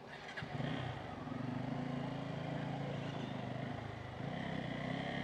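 Bajaj Pulsar N250's single-cylinder engine starting up about half a second in, then running steadily at low revs.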